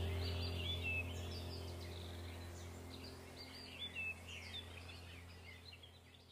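Background soundtrack of birds chirping over a sustained low music drone, fading out steadily to near silence by the end.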